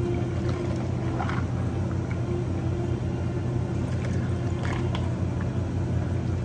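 Steady low machine hum, with a few faint light clicks of handling about a second in and near the end.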